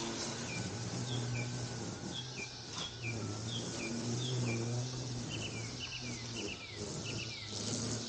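A bird calling in short, repeated down-slurred chirps, about two a second, which turn into quicker doubled and tripled notes a little past halfway. Under it runs a steady low hum.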